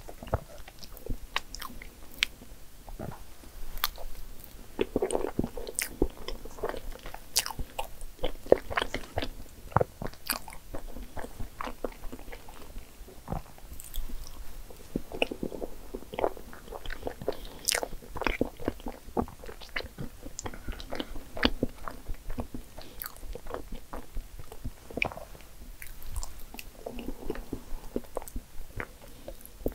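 Close-miked eating sounds: chewing and wet mouth sounds as soufflé pudding is eaten by the spoonful, with irregular sharp clicks of a metal spoon scraping and tapping the small dessert cup.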